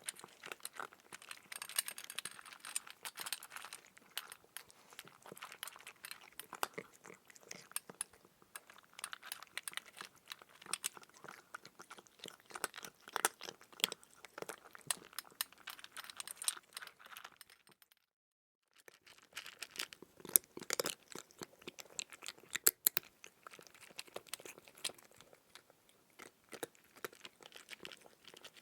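Crunchy food being chewed, a dense run of crackles and crunches, cut off by a short silent break about 18 seconds in before the crunching resumes.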